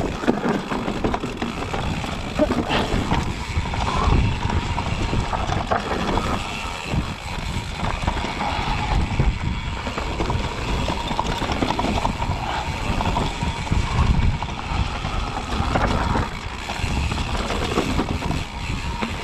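Specialized Kenevo electric mountain bike rolling down a dirt forest singletrack: tyres rumbling over earth and roots, with constant rattling and knocks from the bike as it bounces over the bumps.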